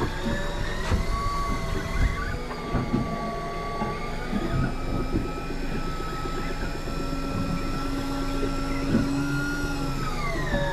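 Electric fishing reel winding in a hooked fish under load: a steady motor whine in several tones that drifts in pitch and dips briefly near the end as the load rises, with scattered light knocks.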